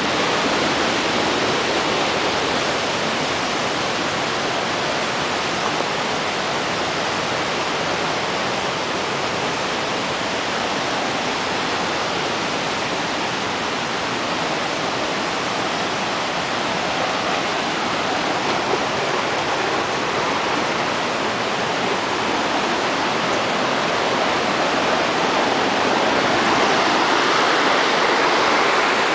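Waterfall, a steady rushing of falling water that grows slightly louder near the end.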